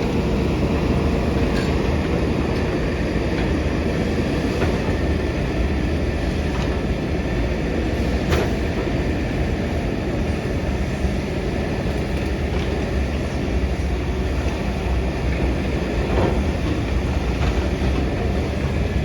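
Heavy construction machine's engine running steadily with a deep rumble, with a few sharp metallic clanks; the loudest clank comes about eight seconds in.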